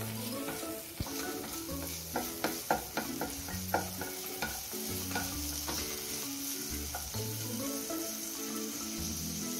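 Chopped onion sizzling in hot oil in a nonstick pan while a slotted spatula stirs it, with a cluster of clicks and taps from the spatula against the pan about two to four seconds in. Soft background music with slow held notes runs underneath.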